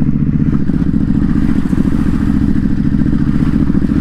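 A Ducati Hypermotard 950 SP's 937 cc Testastretta L-twin engine running steadily while the bike is ridden. Its pitch holds even, with dense, regular firing pulses.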